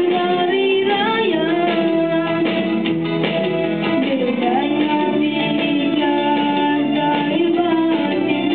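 A boy singing a slow melody into a handheld microphone over instrumental accompaniment, holding long notes.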